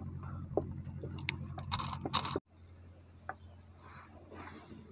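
Fishing gear being handled in a small boat: a few light clicks and knocks, then two short rustling bursts about two seconds in, over a steady high insect drone. The sound drops out abruptly soon after and carries on quieter.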